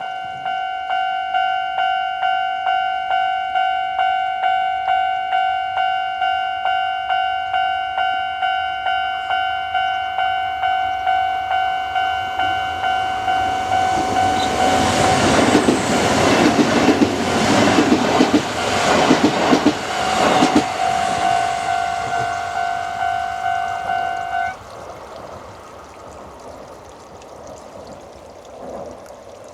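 Japanese level-crossing alarm ringing its steady electronic bell, about two dings a second, while a Kintetsu train passes over the crossing about halfway through with wheels clacking over rail joints; the alarm cuts off suddenly a few seconds after the train has gone.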